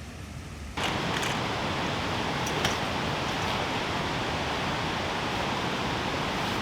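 Steady rushing of flowing water, cutting in suddenly a little under a second in and holding even from then on.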